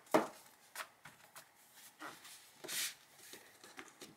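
Paper journaling cards being handled: soft clicks and taps as thin card stock is flipped through and set down on a table, with a brief swish of a card sliding about two-thirds of the way in.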